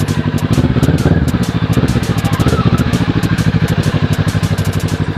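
Kawasaki ER6N's 649 cc parallel-twin engine running near idle, its exhaust giving a steady, even pulsing beat.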